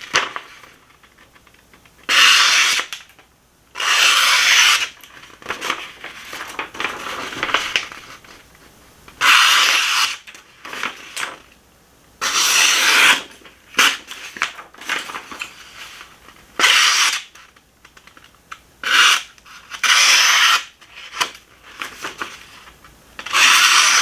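The small knife blade of a Roxon KS2 mini multitool slicing through a sheet of paper held in the air, in about eight short hissing cuts a few seconds apart. The cuts mark a sharp edge; the blade proves surprisingly sharp.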